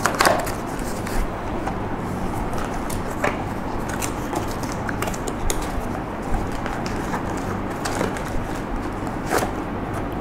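Packaging being handled while a tripod is unboxed: a handful of short rustles and knocks, scattered a second or two apart, over a steady background hiss.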